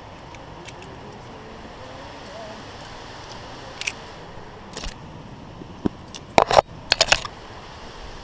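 Metal clinking and jangling of via ferrata carabiners against the steel safety cable as the climber moves along it: a few single clicks, then a quick, louder cluster of clinks near the end.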